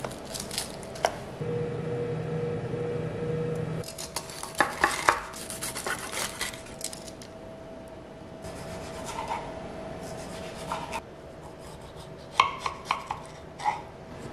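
Food-prep sounds: a steady hum for about two seconds near the start, then scattered clinks of utensils and dishes. Near the end come several sharp taps of a kitchen knife cutting through a tomato onto a wooden cutting board.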